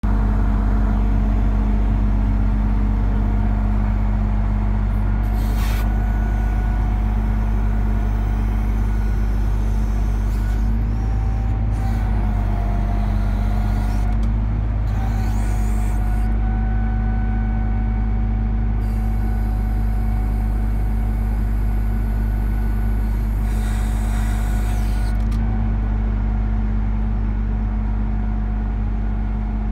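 Truck engine running steadily to drive the hydraulics of a Palfinger knuckle-boom crane as the boom is worked, a constant hum and whine that shifts a little in pitch as the load changes. Several brief hisses come and go over it.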